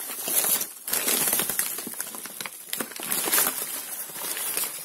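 Wrapping paper rustling and crinkling unevenly, with small crackles, as paper-wrapped orchid plants are handled.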